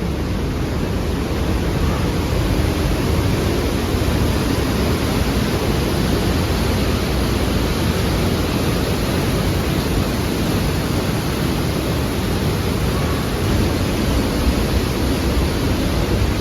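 Fast, high-volume mountain river rushing through a narrow rock gorge: a steady, unbroken wash of water noise.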